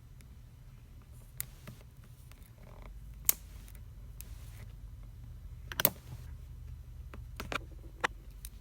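Sharp plastic clicks and snaps, about six of them and spaced irregularly, as a thin plastic pry pick is worked along the seam of a ZTE Blade Z Max smartphone's taped-on back cover. A faint low hum runs underneath.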